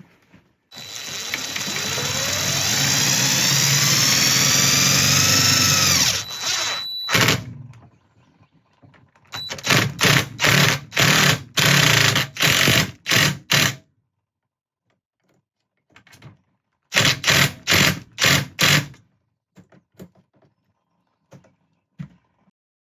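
Cordless drill/driver driving screws: one long run with the motor whine climbing in pitch, cut off about six seconds in, then two sets of short quick trigger bursts, about eight and then five, as screws are run in and snugged down.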